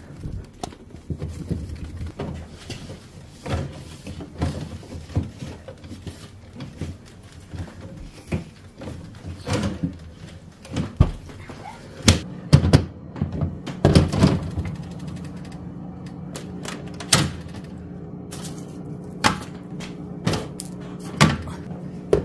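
Food containers and jars being moved, set down and knocked against each other on a refrigerator shelf: irregular clunks and thuds. A low steady hum comes in about two-thirds of the way through.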